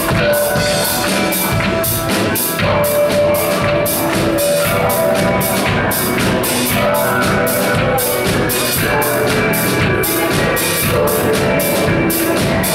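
Live rock band playing: a drum kit keeping a steady beat with cymbal hits about three a second, under held electric guitar, keyboard and bass notes.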